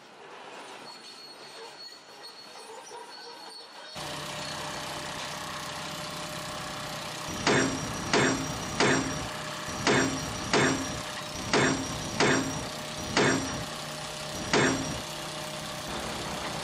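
Heavy hammer blows ringing on steel track hardware, about eleven strikes roughly two a second, over a steady machine engine hum that starts suddenly about four seconds in.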